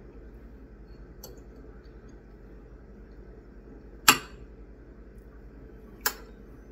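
Forks clinking against plates as cheesecake is cut and eaten: a faint tap about a second in, then two sharp clinks about two seconds apart, the first the loudest. A steady low hum lies underneath.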